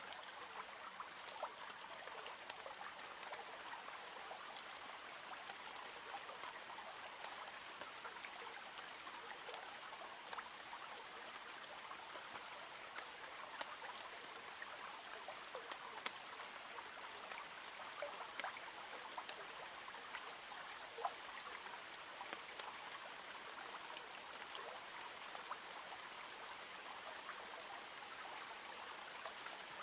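Steady rain falling, a soft even hiss with scattered sharp drop clicks.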